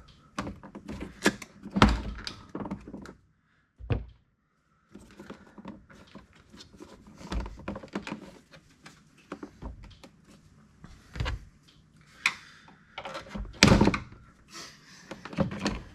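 Irregular plastic knocks and thunks as the factory air box of an Audi A4 is worked loose and handled in the engine bay. A few clunks stand out, one about two seconds in and a louder one near the end, and there is a short dead-silent gap about three seconds in.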